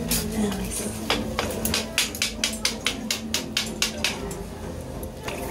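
Kitchen knife tapping and chopping on a plastic cutting board while cutting and shaping fish cake paste: a quick run of sharp knocks, about six a second through the middle, sparser at the start and near the end.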